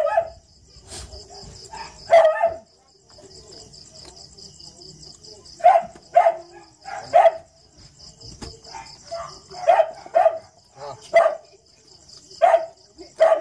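A dog giving short single barks at irregular intervals, about ten in all, over a steady pulsing trill of crickets.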